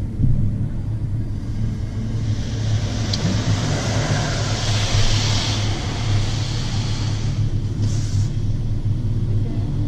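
BMW 4 Series engine idling, a steady low hum heard from inside the cabin. From about two seconds in to about seven and a half seconds, water spray from the car wash hisses over the car's body, with a short further hiss of spray near the end.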